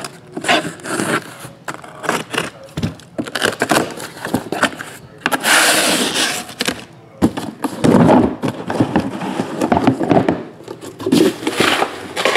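Cardboard case and shrink-wrapped trading-card boxes being handled: irregular scraping of cardboard and crinkling of cellophane wrap, with a few light knocks as the boxes are pulled out and set down.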